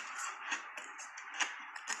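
Close-up chewing of a big mouthful of soft shaved ice: a dense run of crackly crunches, with sharper crunches about half a second and a second and a half in.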